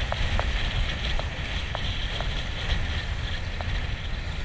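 Wind buffeting the microphone as a small boat runs across choppy water, over a steady low rumble, with a handful of short, light knocks scattered through.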